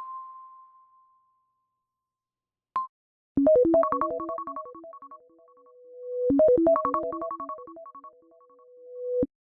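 iPad ringtone playing: a quick run of chiming electronic notes ending on a held note that swells, played twice, the second time cut off abruptly. Before it, the last ding of the previous tone fades away.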